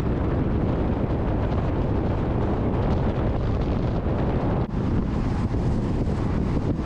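Steady low rumble of road and wind noise inside a moving car.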